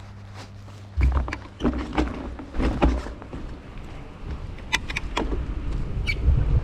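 A bicycle riding over snow, picked up by a GoPro's microphone: a low rumble of wind on the microphone with irregular knocks and rattles. It starts about a second in, after a steady low hum.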